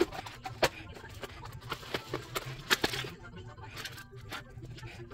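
Handling noise from Dyson Airwrap attachments and their storage case: irregular clicks, taps and knocks of hard plastic parts being moved, over a low steady hum.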